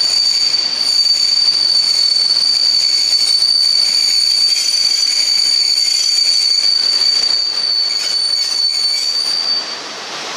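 Train wheels squealing on steel rail: one long, steady, high-pitched squeal over the rumble and rattle of the cars, which stops abruptly about a second before the end.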